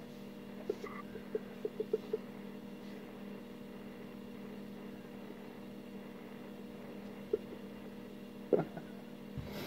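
Steady low hum made of several fixed tones, with a few faint short clicks in the first couple of seconds and a sharper click near the end.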